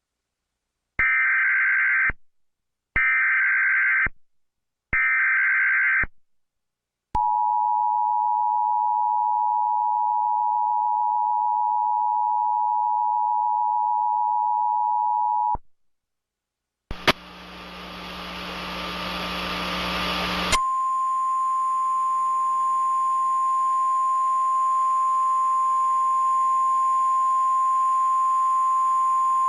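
Emergency Alert System tones: three screechy digital header bursts about a second long and a second apart, then the two-tone attention signal held steady for about eight seconds. After a short gap comes a few seconds of static hiss, then a single steady high tone over fainter hiss.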